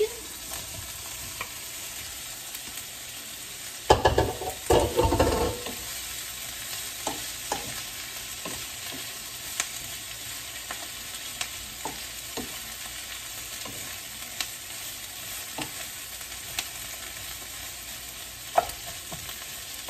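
Onions sizzling steadily in a frying pan, with a loud clatter about four seconds in as pre-fried chicken strips go into the pan. After that, a wooden spoon stirs the chicken and onions, ticking and scraping against the pan now and then.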